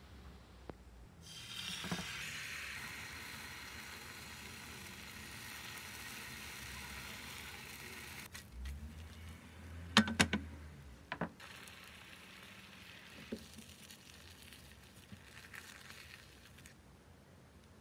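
Oil and beaten egg sizzling in a hot square non-stick omelette pan: a hiss that starts suddenly about a second in and slowly dies down. A few sharp knocks of utensils against the pan come around ten seconds in.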